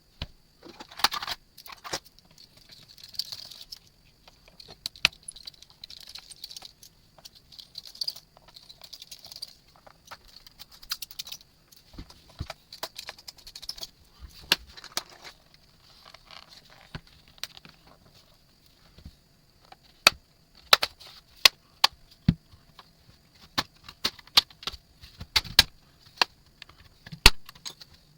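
Small tools and plastic laptop parts being handled: an irregular run of sharp clicks, taps and scrapes, with the taps thicker and louder in the second half, over a faint steady high whine.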